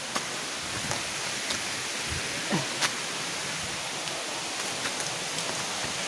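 Steady rushing hiss of a nearby waterfall, with a few faint clicks scattered through it.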